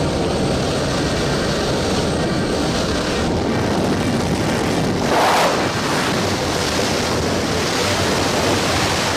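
Loud, steady rush of wind through the open door of a skydiving jump plane, over the drone of the aircraft's engine, with a brief louder surge of noise about five seconds in.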